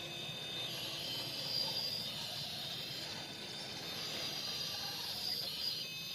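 Whine of an RC scale crawler's electric motor and gears, rising and falling in pitch as the throttle changes, over a steady hiss.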